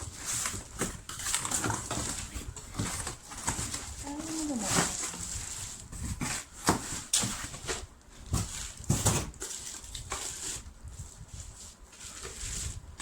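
Rustling packaging and the knocks and clinks of nonstick pots and lids being handled during unpacking. About four seconds in there is one short whine that rises and falls.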